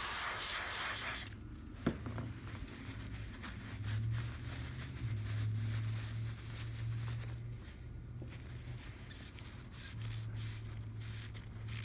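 A loud hiss for about a second, then a click and faint rubbing and handling as gooey grease is wiped off the lock's springs with a rag, over a low steady hum.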